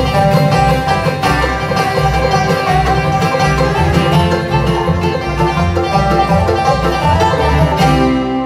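Live bluegrass band playing: rolling five-string banjo, fiddle, mandolin, acoustic guitar and upright bass, settling onto a held chord near the end.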